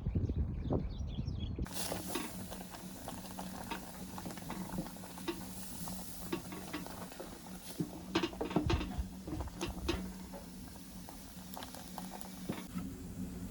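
Cooking in a pot: food simmering with irregular clicks and scrapes of a utensil stirring, over a steady low hum, starting after a cut about two seconds in.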